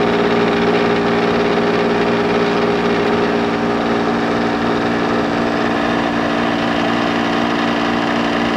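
General Electric ADEL50LRL2 dehumidifier running: a steady hum with fan noise over it. It is working normally, its coils cold and dripping condensed water.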